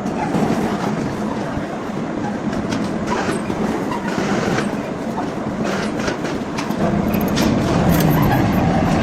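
Workshop machinery running with a steady, loud rattling clatter.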